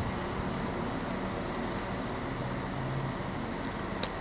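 Marinated chicken drumsticks sizzling steadily on a grill rack over hot charcoal, with a single sharp click about four seconds in.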